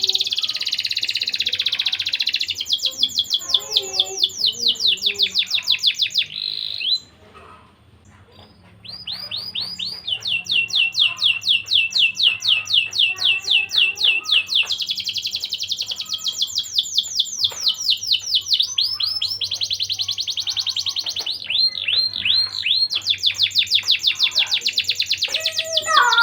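Domestic canary singing long, rapid trills of evenly repeated high notes, with a brief pause about seven seconds in.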